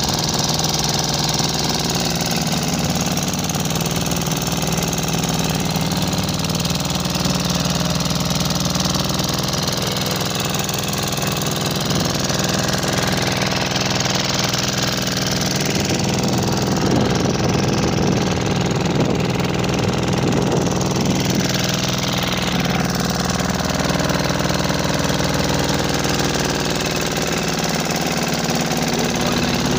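Small inboard engine of a wooden fishing boat running steadily at a constant speed while the boat is under way.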